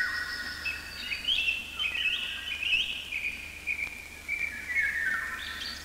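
High, bird-like chirping and whistling calls, a chain of short held notes that slide up and down between pitches.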